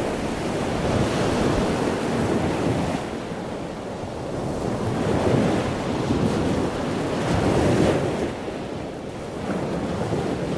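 Rushing water noise like surf, swelling and ebbing every few seconds.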